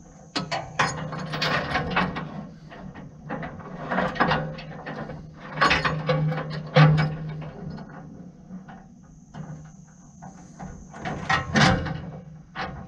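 Heavy steel chain rattling and clanking as it is handled and hooked onto the metal backrest and mast of a skid steer's fork attachment, in irregular metal-on-metal clinks, loudest around seven seconds in and again near the end.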